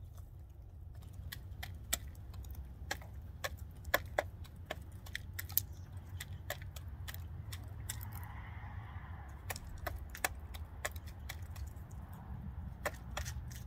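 A hen pecking mixed grain from a plastic feed scoop: irregular sharp clicks of the beak striking grain and plastic, a few a second, over a steady low rumble.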